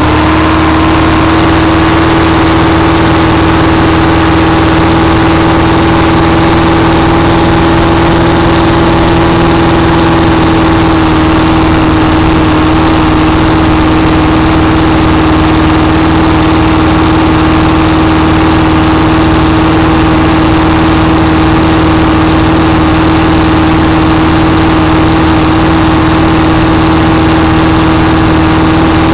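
Supercharged Ford engine of a blown flat-bottom boat running steadily at low speed. The pitch holds even and dips slightly about eleven seconds in.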